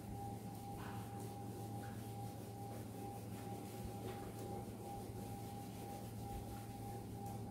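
A whiteboard being wiped clean with an eraser: a few soft, brief rubbing strokes over a steady faint electrical hum with a thin whine.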